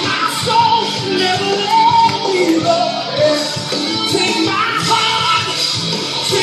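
Gospel song with a singing voice over a full instrumental backing.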